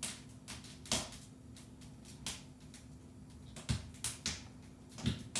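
Scattered sharp clicks and light taps at irregular intervals, about ten in five seconds, over a steady low hum.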